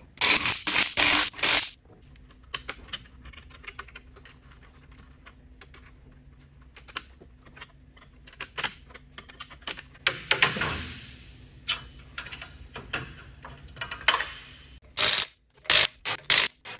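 Short bursts from an impact wrench on a car's wheel lug nuts, several in the first two seconds and again near the end. About ten seconds in comes a metallic clatter as a steel wheel cover is pried off, and there are lighter clinks of tools and lug nuts between these.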